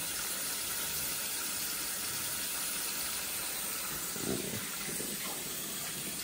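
Bathroom sink faucet running steadily into the basin while a child washes her hands under the stream.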